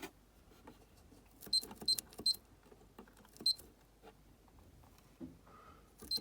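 Electronic pigeon-racing clock beeping as its buttons are pressed. There are four short, high beeps: three in quick succession about a second and a half in, and one more about two seconds later. Soft clicks and handling taps come in between.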